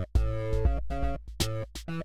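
Instrumental background music with a deep bass and a steady, repeating beat.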